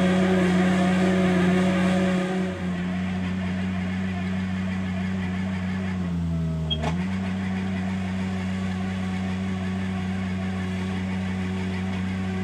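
Mini loader's engine running steadily at high speed while it drives a chain trencher attachment through sandy soil. It drops a little in loudness about two seconds in. About six seconds in, the engine pitch sags for most of a second, then picks back up.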